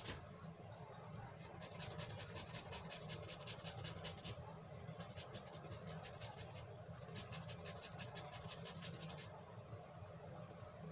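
Green papaya being grated by hand on a handheld grater: quick rhythmic scraping strokes, about five a second, in three runs with short pauses between them.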